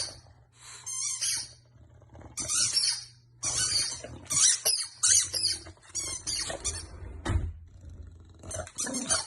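An animal making a series of short, high-pitched, squeaky calls, about a dozen in all with brief gaps between them.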